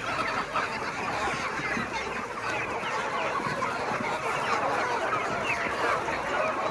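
A flock of chickens clucking and calling together, many short calls overlapping without a break.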